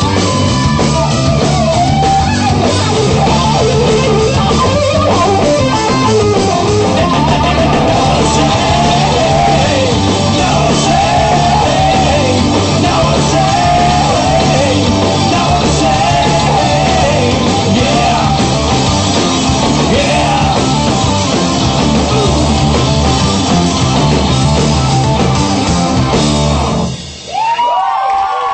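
Rock band playing loud, with electric guitars, bass and drums and a melodic line that may be a voice or a guitar; the music cuts off sharply near the end and a different, thinner music passage begins.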